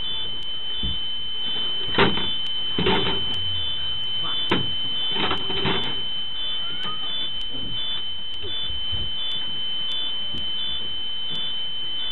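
An electronic alarm in a crashed bus sounds a continuous high-pitched tone, with a fainter beep pulsing on and off about twice a second. Several knocks and bangs come from passengers moving about the overturned bus, the loudest about two seconds in and the rest up to about six seconds.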